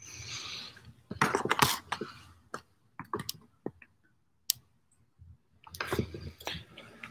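Irregular clicks, taps and rustling close to the microphone, like a recording device being handled and adjusted.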